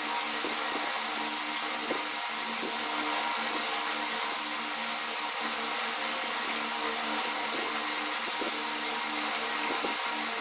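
A steady whirring hiss with a low hum under it, like a fan or small motor running, with faint irregular soft taps.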